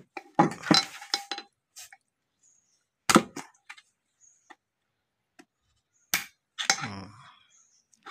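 Metal tool clinks and scrapes: a flat screwdriver tip knocking and working against the bearing's retaining circlip and the clutch pulley. The clicks come in three clusters: about half a second in, around three seconds in, and around six to seven seconds in.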